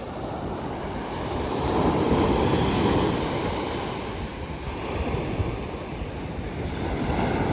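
Ocean surf breaking and washing on a beach, swelling to its loudest about two seconds in, easing off, then building again near the end, with wind buffeting the microphone.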